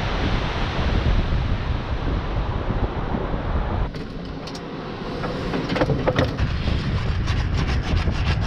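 Strong wind buffeting the microphone, with surf behind it. After about four seconds it eases briefly and a few sharp clicks and knocks come through, then more short ticks near the end as the wind picks up again.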